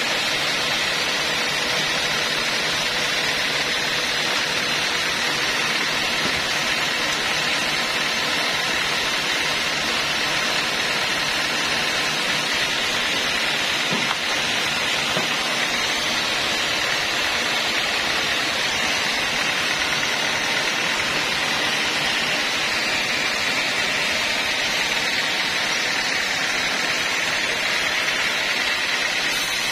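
Homemade band sawmill running steadily without cutting, its blade and drive making an even hiss with a faint steady hum while a mahogany log is set on the carriage.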